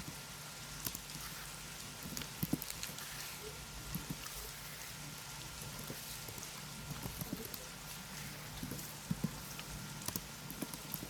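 Computer keyboard typing: soft, irregular key clicks, sometimes in quick runs, over a steady background hiss.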